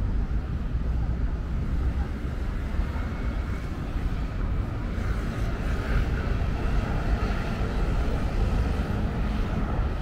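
City street ambience: a steady low rumble of passing traffic, with faint background voices.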